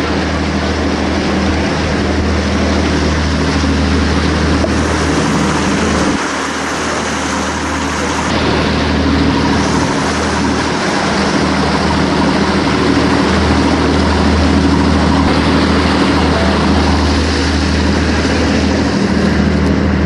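A boat's engine running steadily with a constant low hum, under loud wind and water noise.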